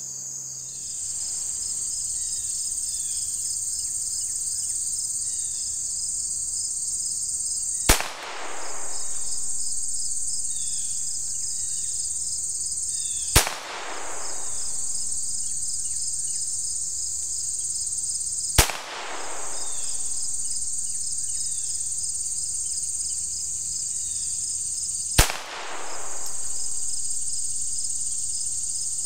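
Four single shots from a Ruger Standard .22 semi-automatic pistol firing .22 Long Rifle Remington Golden Bullet rounds: short, sharp cracks about five seconds apart, slow aimed fire. A steady high insect chirring runs underneath.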